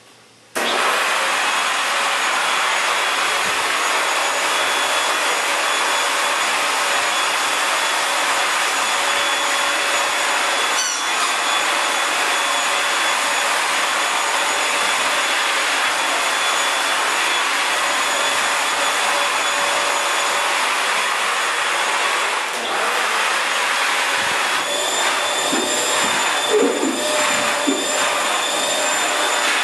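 Corded stick vacuum cleaner switched on about half a second in and running with a steady whine. In the last few seconds its pitch steps up slightly and wavers.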